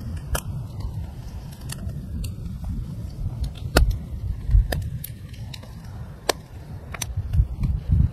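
Wood campfire crackling, with sharp pops of burning wood coming irregularly about once a second over a steady low rumble.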